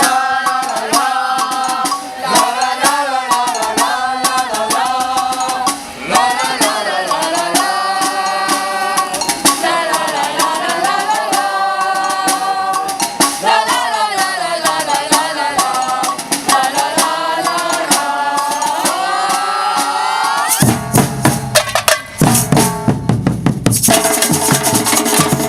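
Singing over shakers and light percussion, the sung line gliding up and down. About twenty seconds in the singing stops and loud, rhythmic percussion-band drums take over.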